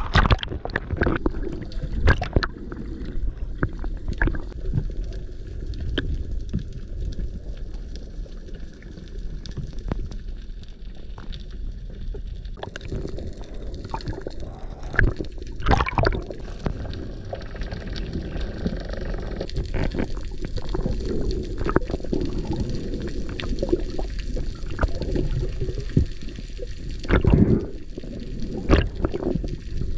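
Water heard by a submerged camera: a steady muffled rumble with gurgling, bubbling and scattered sharp clicks and pops, the loudest about halfway through and near the end.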